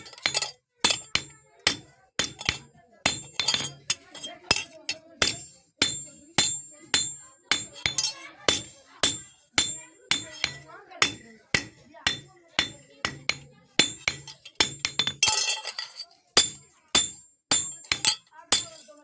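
Hand hammer striking steel on an anvil in steady blows, about two a second, each one ringing metallically, as a spatula is forged from one piece of metal.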